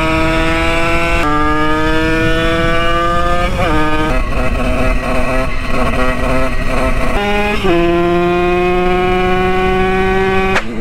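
Simson moped's two-stroke engine at high revs while riding, its pitch climbing slowly under throttle. The pitch drops sharply about a second in and again near the end, with a rougher, uneven stretch in the middle.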